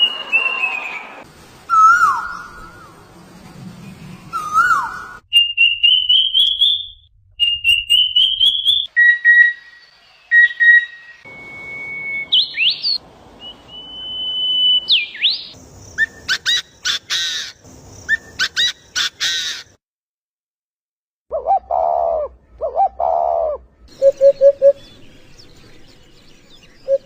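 A string of short recordings of different bird calls and songs, spliced one after another with abrupt cuts. It moves through rising whistled notes, steady whistles and rapid repeated chirps, then, after a brief silence, lower pulsed calls.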